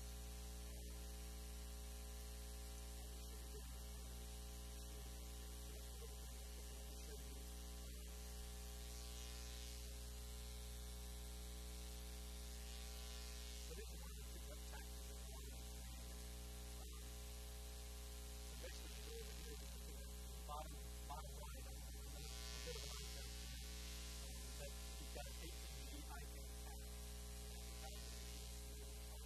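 Steady electrical mains hum with a constant hiss on the recording, with no speech.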